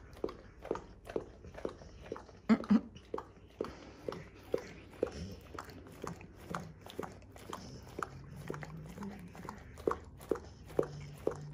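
American Pit Bull Terrier licking peanut butter off a plastic freezer bag: wet tongue smacks on the plastic about twice a second, with a louder double smack about two and a half seconds in.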